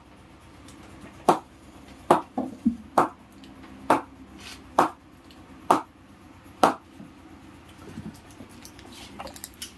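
Sharp knocks on the face of a Kookaburra Bubble English willow cricket bat, about one a second, eight or so in all, each with a short ring; they stop about two-thirds of the way through.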